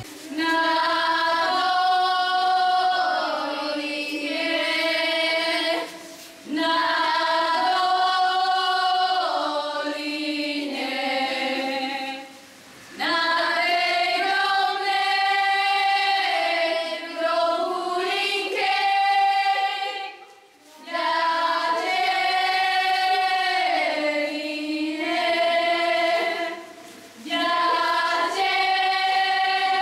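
A group of girls singing a folk song together without accompaniment, in long held phrases with a short pause for breath between them.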